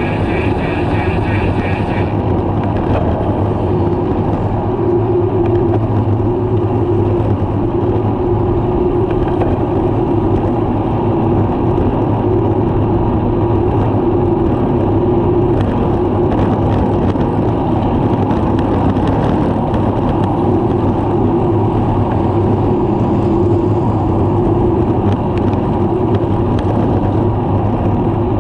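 Steady wind rush and tyre-on-asphalt road noise on the microphone of a camera mounted on a road bicycle riding at speed.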